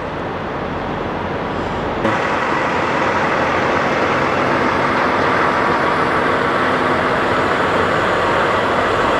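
Steady drone of semi-truck diesel engines at a truck stop, stepping up in level suddenly about two seconds in.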